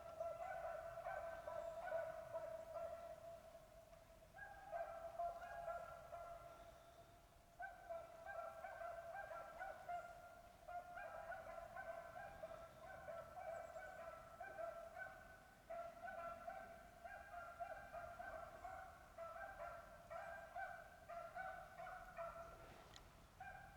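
Beagles baying in the distance as they run a rabbit, a fast, almost unbroken string of calls with brief lulls. The hounds are giving voice on the rabbit's scent trail, the sign that they are still on the track.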